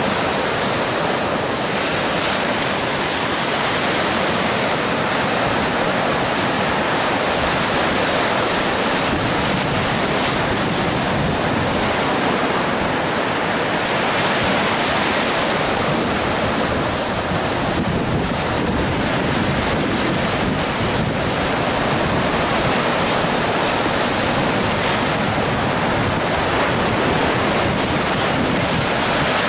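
Baltic Sea surf breaking and washing up a sandy beach: a steady rush of water that swells and eases as each wave comes in. Wind buffets the microphone underneath it.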